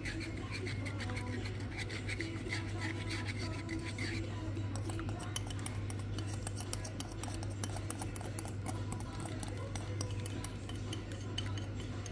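Wire whisk clicking and scraping against a metal saucepan, stirring milk and custard powder into custard as it heats and thickens. A steady low hum runs underneath.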